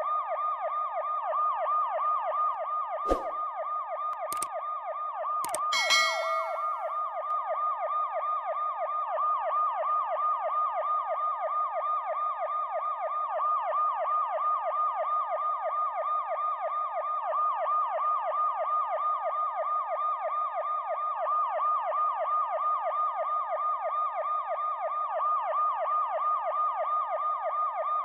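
Police car electronic siren in yelp mode, a fast wail rising and falling several times a second without a break. A few sharp clicks come a few seconds in, the last followed by a brief ringing tone.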